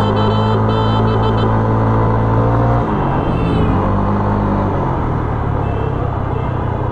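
Street traffic with long, steady horn blasts, the pitch shifting about three seconds in.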